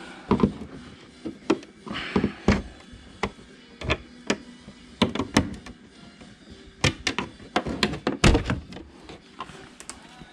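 A run of irregular knocks, thuds and clatters from hard objects being handled and set down, about a dozen in all, with the loudest thud a little after eight seconds in.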